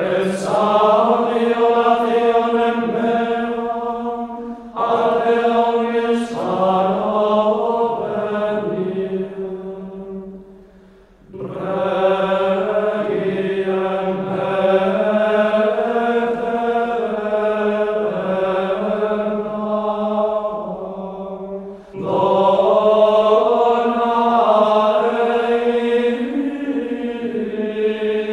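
Slow sung vocal music, like sacred chant, in long held notes. There are short breaks between phrases about eleven and twenty-two seconds in.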